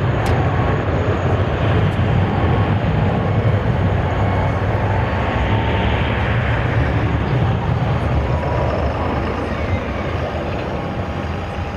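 Airbus A321 jet engines at takeoff power during the takeoff roll and lift-off, a loud steady jet noise that eases slightly in the last couple of seconds.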